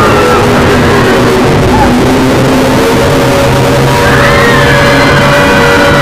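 Fan-made Emergency Alert System alarm audio, very loud and heavily distorted, sounding like music. A dense noisy wash carries steady low tones throughout, with sliding higher tones that come back about four seconds in.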